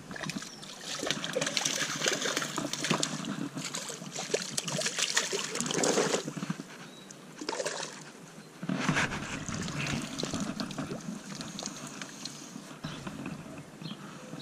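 Creek water splashing and sloshing in irregular bursts as a caught brown trout is landed and handled in the shallows, with close rustling from hands and clothing against the chest-mounted camera. It is loudest in the first half, dips briefly past the middle and picks up again.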